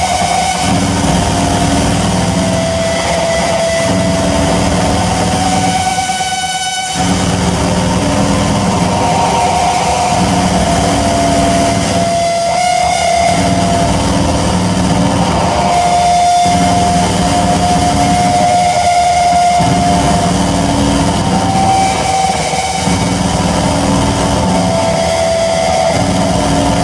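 Loud live electronic noise-drone music: a dense, buzzing low drone with held tones above it that change pitch every few seconds, the whole sound thinning out briefly about six to seven seconds in.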